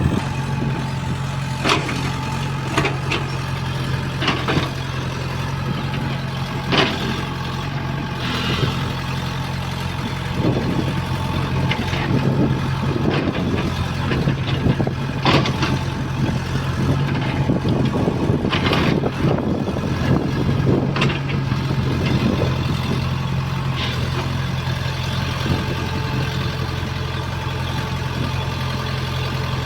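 EX70 excavator's diesel engine running steadily, with sharp clanks and knocks every few seconds.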